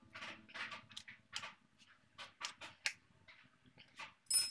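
A wrench tightening the frame-mounting bolts of a motorcycle rear brake master cylinder: a run of short, irregular metallic clicks and scrapes. Near the end comes a sharp metallic clink with a ringing tone, the loudest sound.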